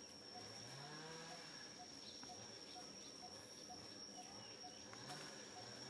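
Faint forest ambience: a steady high insect whine, with a soft call repeating about twice a second and a faint low rising call about a second in.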